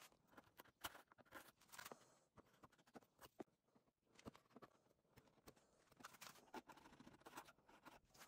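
Faint, scattered ticks and scrapes of a bench chisel paring the corners of a small wooden tenon.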